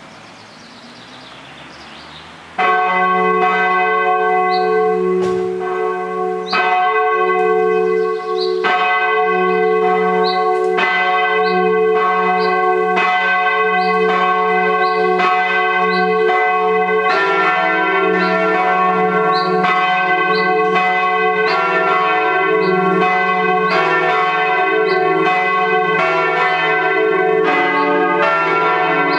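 Protestant church bells ringing from the tower. A single bell starts about two and a half seconds in, striking roughly every two seconds, and each stroke rings on. A little past halfway more bells join, and the strokes come thick and overlapping as they ring together.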